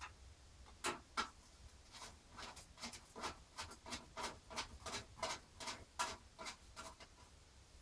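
Light, irregular clicks and taps, about two or three a second, from computer parts and hardware being handled and fitted in a PC case.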